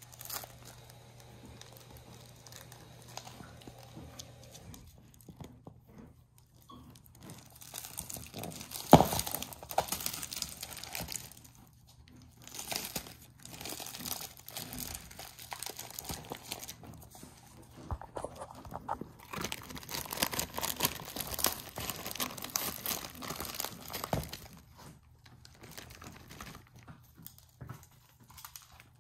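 Plastic wrap crinkling and tearing as it is pulled off a large dog chew bone while a Great Pyrenees puppy gnaws at it, in several long bouts of rustling and crunching. A sharp knock comes about nine seconds in.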